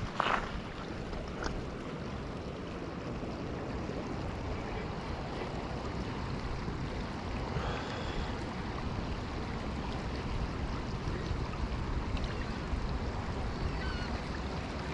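River water flowing steadily, an even rushing sound with no break.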